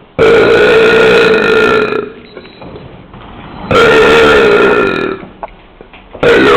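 Long, loud, drawn-out belches: two held burps of about a second and a half to two seconds each at a steady pitch, then a third starting near the end whose pitch dips and rises again.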